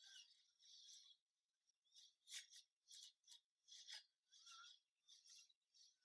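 Faint, scratchy strokes of a fine watercolour brush on paper, about two a second with short pauses between them.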